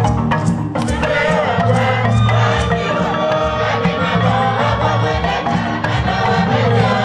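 A women's choir singing together over a percussive backing with a steady bass line; the voices come in about a second in, after a run of evenly spaced drum strokes.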